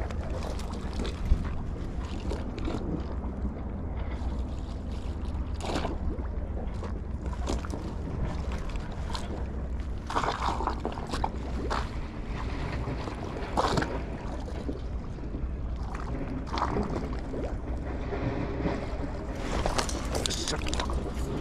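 Steady low wind rumble on the microphone, with a few scattered knocks and rustles from handling the gear, one sharp knock about a second in.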